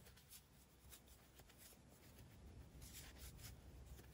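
Near silence, with a few faint rustles from chunky yarn being drawn over a plastic crochet hook, mostly in the second half.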